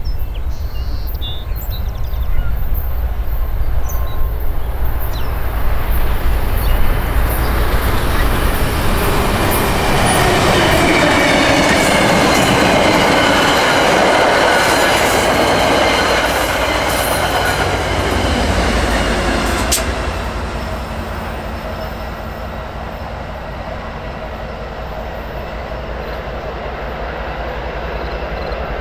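Amtrak San Joaquin passenger train of Comet coaches rolling past at close range: loud wheels-on-rail rumble with high wheel squeal in the middle stretch. About two-thirds of the way through, the sound drops to a quieter, steady diesel locomotive drone of an approaching train.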